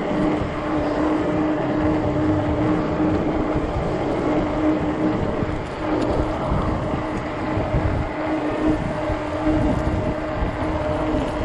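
Gusty wind buffeting the microphone while riding a 48 V fat-tire e-bike, with a steady hum from the bike running underneath it.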